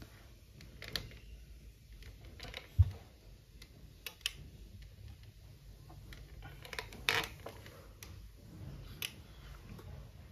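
Faint, scattered clicks and taps of hands handling small objects, with a low thump about three seconds in and a sharper click about seven seconds in.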